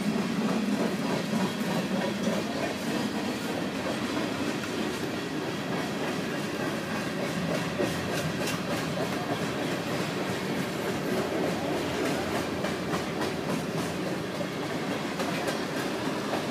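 Grain train of covered hopper cars rolling past, a steady rumble of steel wheels on rail with repeated clicks as the wheels cross rail joints. The clicks come thicker in the second half.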